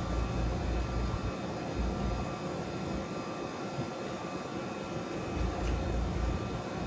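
A 1.5-ton Trane XL14i heat pump's outdoor unit running steadily, its compressor and condenser fan droning with faint steady tones. Gusts of wind rumble low on the microphone.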